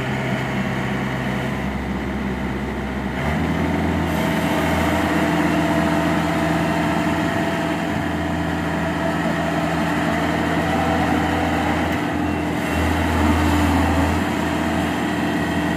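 Yanmar AW70GV combine harvester's engine running steadily while the machine unloads grain through its auger pipe; the engine note steps up about three seconds in and then holds.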